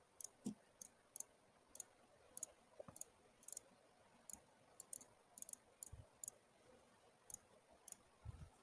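Faint, irregular clicking of a computer mouse, about twenty clicks spread over several seconds, with a couple of soft low bumps near the end.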